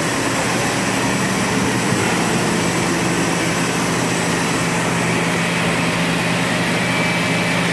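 Steady machinery din of an injection-molding plant: a constant low hum under an even hiss, with a faint high whine.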